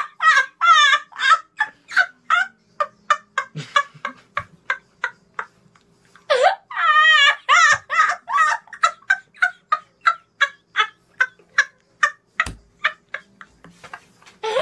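A boy laughing uncontrollably in quick high-pitched pulses, about three or four a second; the fit dies down about five seconds in, then bursts out again with a loud squeal and runs on in rapid pulses. A low thump sounds near the end.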